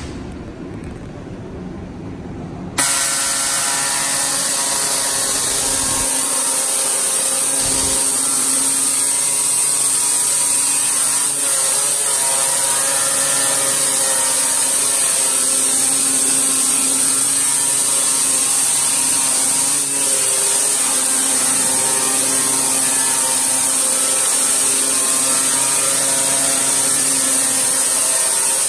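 Etching engraving head of a Steeltailor CNC plasma table scribing lines into steel plate: a loud, steady buzzing hiss that starts suddenly about three seconds in, after a few seconds of quieter machine noise.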